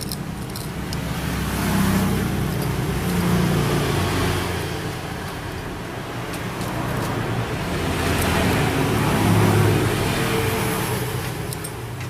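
Motor vehicle engine noise that swells and fades several times, like vehicles passing.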